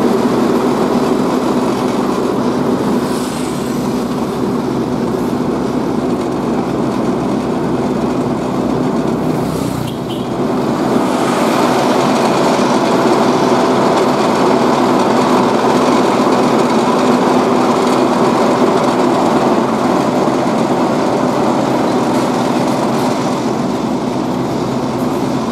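Steady diesel engine drone of heavy road-paving machinery running close by, dipping briefly about ten seconds in.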